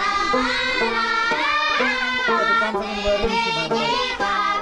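Background music: a folk-style song, one voice singing a wavering melody over steady instrumental accompaniment.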